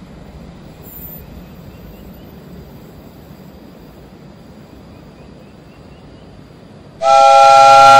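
Faint steady rumble of a passenger train running away down the track. About seven seconds in, a loud multi-tone horn sounds as one steady chord of several notes for just over a second, then cuts off abruptly.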